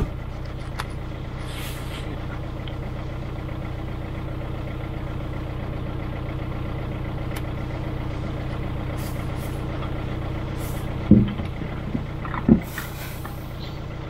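Tracked all-terrain vehicle's engine idling steadily, with two short thumps about eleven and twelve and a half seconds in.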